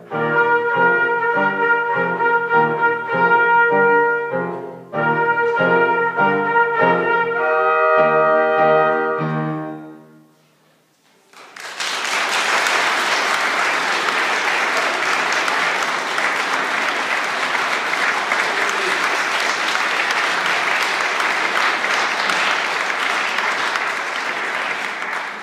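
Brass section with trumpets and trombones playing the closing bars of a march, ending on a held final chord about ten seconds in. After a brief pause, audience applause starts and continues steadily.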